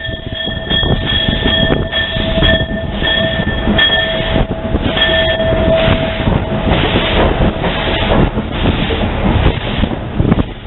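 0-8-0 steam tank locomotive's train running slowly, with a steady rumble and clattering knocks from the wheels. A high ringing tone pulses over it and stops about six seconds in, followed by rhythmic hissing.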